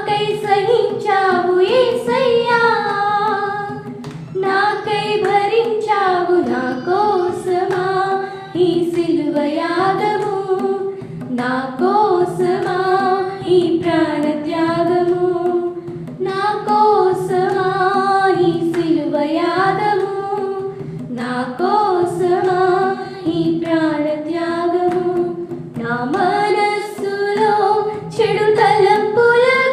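A group of young women singing a Telugu Christian worship hymn together, one voice through a microphone, in sung phrases of a few seconds with short breaths between.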